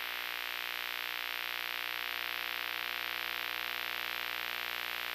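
A steady electronic hiss like static or white noise, even and unchanging, with faint steady tones underneath.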